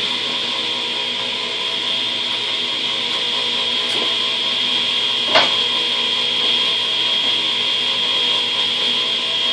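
A shop machine running steadily, a constant hum with a high whine over it. Two sharp knocks, about four and about five and a half seconds in, the second louder, from parts being handled at the workbench.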